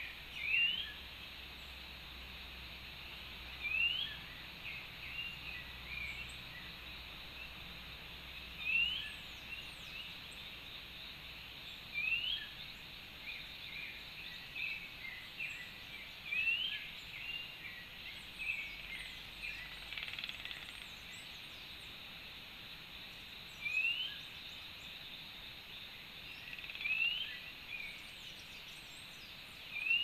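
Forest-garden ambience: a bird repeats a short rising call every few seconds over a steady background hiss, with scattered smaller chirps and faint high squeaks between.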